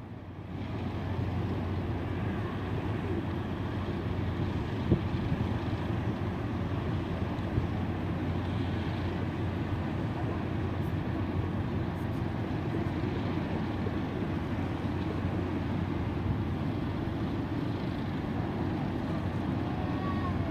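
Steady low rumble of a large Corsica Ferries car ferry's engines as the ship manoeuvres through the harbour.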